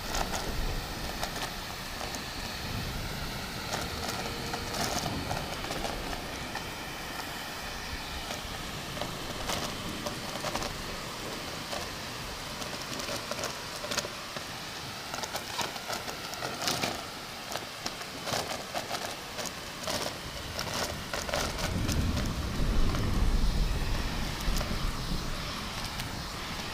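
Vacuum cleaner running steadily under a bed of heavy rain, with scattered crackles. Near the end a low thunder rumble swells up and dies away.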